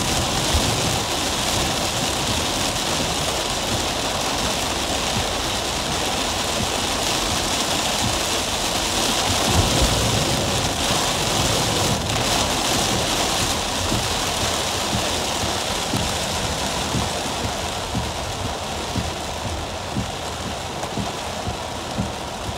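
Heavy rain falling on a car's roof and windshield, heard from inside the cabin as a steady, loud hiss. It eases slightly near the end, with a few sharper drops or taps.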